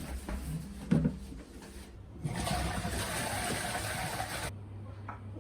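A thump about a second in, then a toilet flushing: a rush of water that starts about two seconds in and cuts off suddenly after a couple of seconds.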